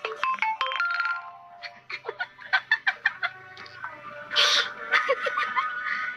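Electronic beeping tune with stepping notes, followed by a run of quick clicks, a brief hiss and short rising chirps.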